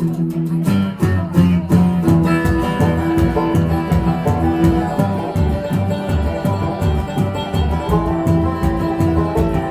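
Bluegrass string band playing an instrumental opening: quick plucked strings over a steady beat, with long held notes laid over it.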